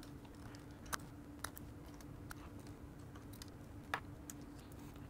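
A few short, sharp clicks and ticks of a small Phillips screwdriver and small camera parts being handled, the clearest about a second in and near four seconds in, over a faint steady hum.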